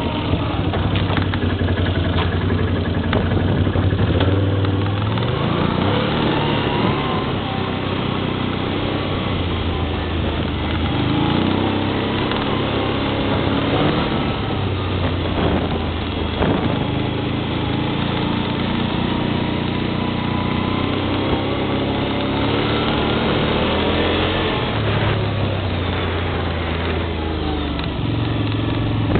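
ATV engine running under way, its revs rising and falling again and again.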